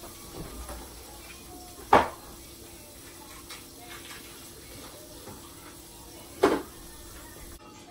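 Two sharp clatters of kitchenware, one about two seconds in and one near the end, each with a short ring, over a faint steady hum.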